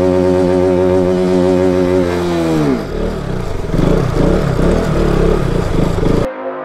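KTM 200 motorcycle's single-cylinder engine held at high revs, then dropping away about two and a half seconds in to uneven, lower running, as the bike struggles to move on snow.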